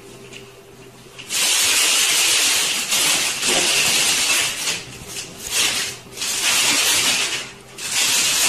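Loud hissing noise starting about a second in, in several long bursts with short breaks between them.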